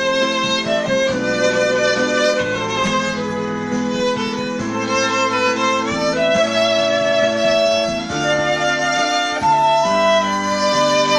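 Instrumental music: a violin-like bowed melody of held notes with small slides, over sustained chord accompaniment.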